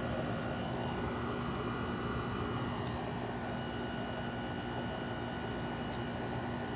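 Haier 5,200 BTU window air conditioner running: a steady hum from its compressor and fan with an even rush of air.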